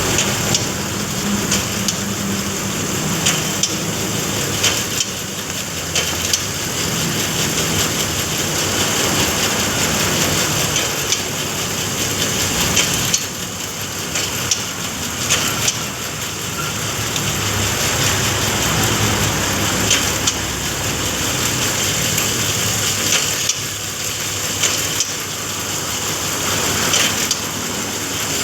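Bamboo satay-skewer machine running, its motor and cutters splitting and shaving bamboo into skewers. It makes a steady noisy rush with frequent sharp clicks.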